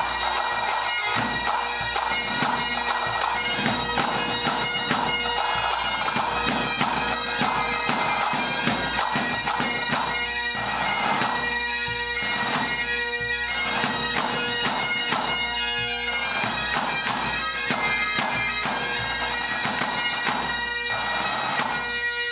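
Pipe band playing: several Great Highland bagpipes sounding a melody over their steady drone, with side drums beating along.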